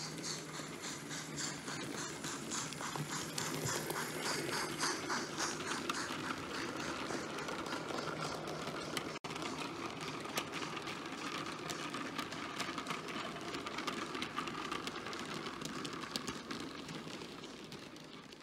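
Model train of a Bavarian class B VI steam locomotive with coaches running along the track, with a steady whirr and rapid clicking of wheels on the rails. It fades away near the end.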